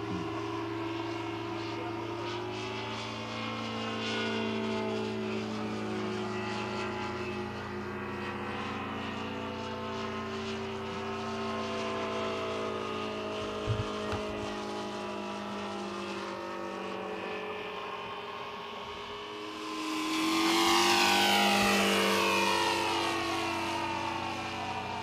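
Two O.S. FR7-420 seven-cylinder four-stroke glow radial engines running in model aircraft flying overhead, their notes drifting up and down in pitch as the planes move about. About 20 seconds in, one passes close and loud, its pitch dropping as it goes by.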